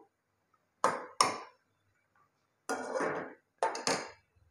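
A metal ladle knocking and scraping against the side of a metal cooking pot while stirring water into a taro curry: a handful of short clanks with a longer scrape in the middle.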